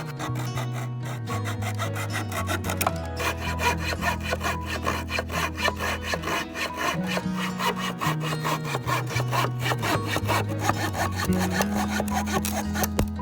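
Small handsaw cutting through a wooden board, in quick, even back-and-forth strokes, over background music.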